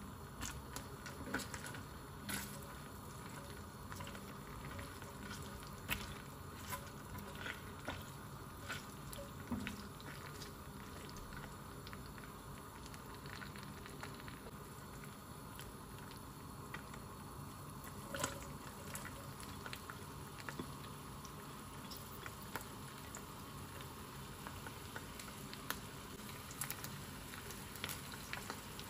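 Cubed meat sizzling in its own juices in an enamelled cast-iron pan: a steady frying hiss with scattered pops and crackles.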